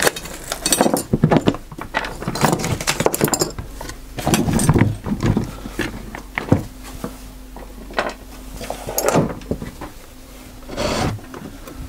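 Irregular knocks and clatters of wooden workpieces and tools being handled and set down on a workbench, with a faint steady hum in the second half.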